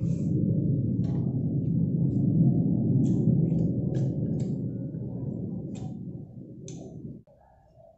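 Scattered light clicks of chopsticks against a small bowl during a meal, over a loud, steady low rumble that cuts off abruptly about seven seconds in.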